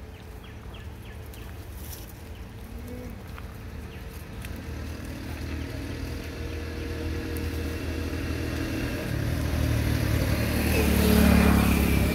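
A motor vehicle's engine running on the road, growing steadily louder as it approaches and loudest about eleven seconds in.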